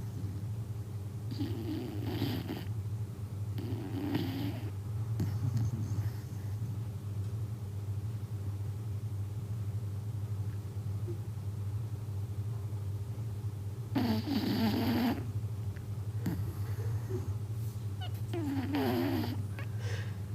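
A corgi snoring, with snores that sound like a grown man's. About five separate snores of about a second each come a few seconds apart, with a long gap in the middle; the loudest is about fourteen seconds in. A steady low hum runs underneath.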